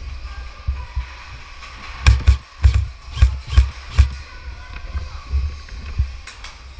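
Sharp cracks of an airsoft gun firing single shots, about six in two seconds, then two more near the end, over low rumbling movement noise on the microphone.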